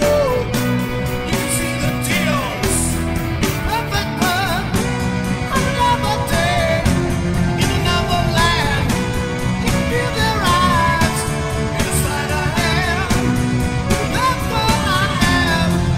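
Rock song with a sung lead vocal over electric guitar, bass and a steady drum beat.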